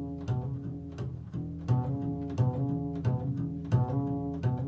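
Upright double bass played pizzicato, improvising: plucked low notes about two to three a second, each ringing on after the pluck.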